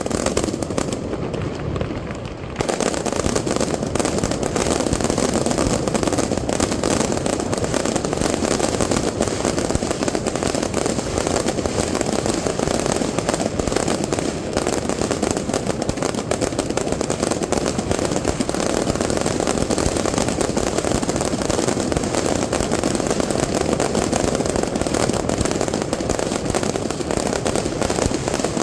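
Fireworks display: after a sparser stretch of pops, a dense, continuous barrage of rapid bangs and crackling sets in about two and a half seconds in and keeps up without a break.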